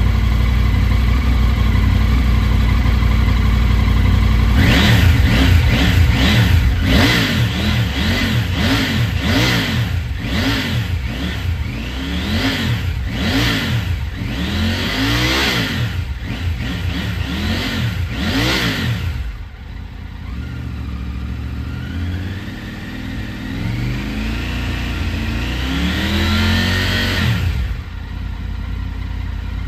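2023 Triumph Tiger 900's 888 cc inline-triple engine breathing through an Endy Volcano aftermarket silencer. It idles, then is blipped in a quick run of short revs about once a second. Then come a few slower, longer revs climbing higher, before it drops back to idle near the end.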